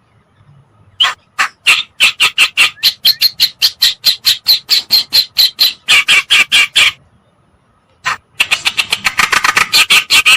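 Recorded kerakbasi lure song: rapid harsh chattering notes repeated about four a second, breaking off briefly after about seven seconds and resuming in a faster, denser run.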